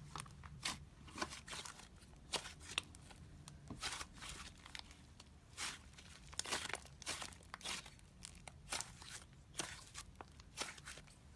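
Slime being squeezed and poked by hand, making irregular crackling pops and clicks, several a second.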